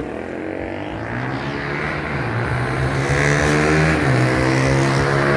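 An engine running steadily with a low, even hum that slowly grows louder.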